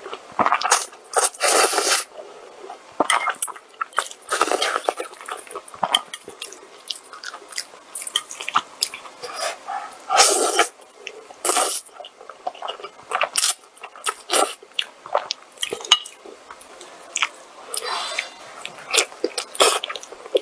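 Close-miked mukbang eating sounds: a person biting and chewing food, with irregular wet, crunchy bursts of mouth noise several times a second.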